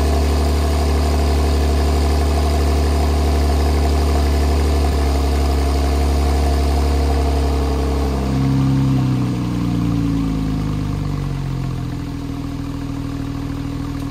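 2019 Porsche 911 Carrera T's twin-turbo 3.0-litre flat-six idling at the exhaust on a cold start. About eight seconds in, the fast cold idle comes down: the pitch falls over a few seconds and settles into a lower, slightly quieter idle.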